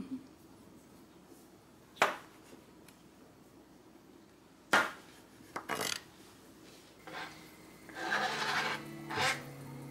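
Chef's knife slicing black olives on a plastic cutting mat: a few sharp knocks of the blade meeting the board, spread a second or more apart. Near the end, a frying pan being stirred on the stove, with scraping.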